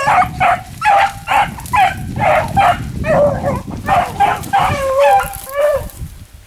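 Beagles baying on the trail of a cottontail rabbit: a run of short, high barks about two a second, stopping near the end.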